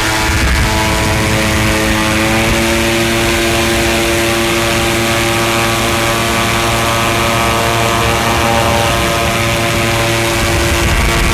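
Steady engine drone, its pitch shifting slightly higher about two seconds in and then holding.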